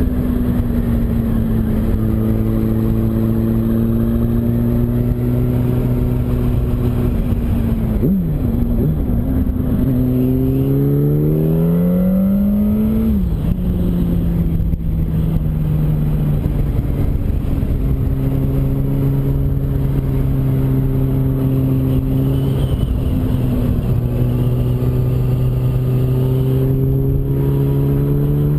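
Yamaha R1's inline-four engine running at a steady cruise, with wind noise over the microphone. About eight seconds in the note dips sharply, then climbs smoothly for a few seconds as the bike accelerates and drops back near thirteen seconds with a shift up, settling to a steady note again.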